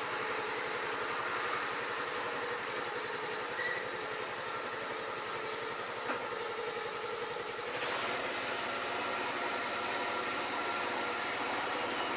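A farm machine's engine idling steadily, with a short knock just before eight seconds in.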